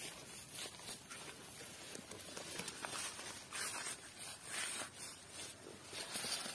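Dry, papery sheaths of cut banana trunks rustling and crackling as the trunks are handled and their outer layers pulled off, in irregular spurts with small clicks.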